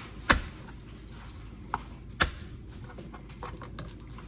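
Kitchenware being handled at the stove: two sharp clacks about two seconds apart, with a lighter tap between them.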